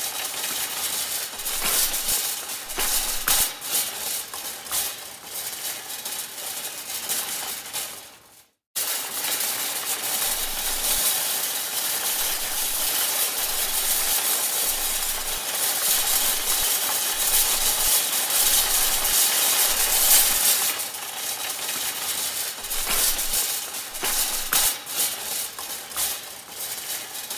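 Metal supermarket shopping cart being pushed, its wire basket and wheels rattling and clattering continuously with many sharp clicks. It cuts off briefly about eight seconds in, then starts again.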